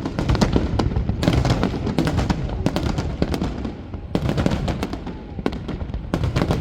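Fireworks display: a rapid string of sharp bangs and crackles from exploding shells, coming in dense clusters, over a continuous low rumble.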